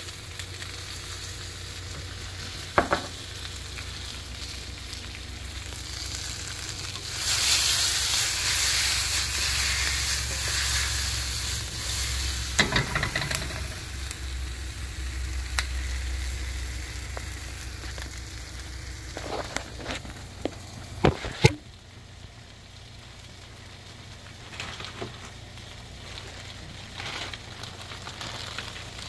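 Food frying and sizzling in a HexClad frying pan, the sizzle growing much louder for about nine seconds in the middle and dying down later. A few sharp knocks of a utensil or the pan stand out.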